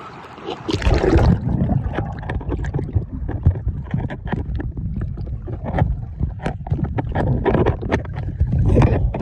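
Underwater sound through a phone in a waterproof housing, starting about a second in when it goes under: a muffled low rumble of moving water with many small clicks and pops of bubbles.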